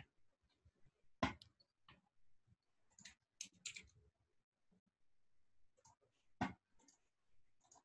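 Faint computer mouse and keyboard clicks, a dozen or so short sharp clicks at irregular spacing, in small clusters.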